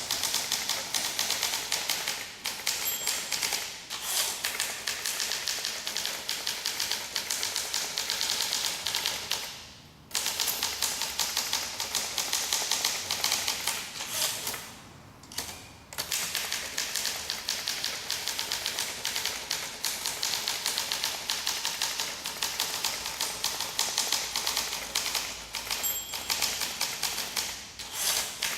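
1958 Olympia SM2 manual portable typewriter being typed on steadily, with rapid key and typebar clacks several a second. The typing breaks off briefly twice, about a third of the way in and about halfway.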